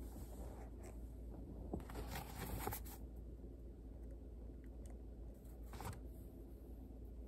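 Faint rustling and scraping of hands handling the bird and sample, strongest for about a second around two seconds in and briefly again near six seconds, over a low steady hum.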